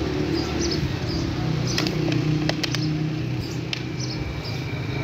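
Street ambience: a steady low engine hum from traffic with short high bird chirps repeating over it. A few sharp clinks come about two seconds in, and another near the end.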